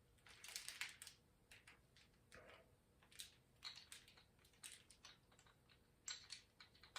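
Faint, irregular light clicks and rattles of small metal valve-train parts being handled and fitted: pushrods and roller tip rocker arms going onto the engine's cylinder head.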